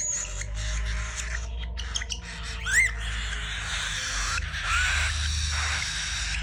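Cockatiels calling: a few short rising chirps, the loudest about three seconds in.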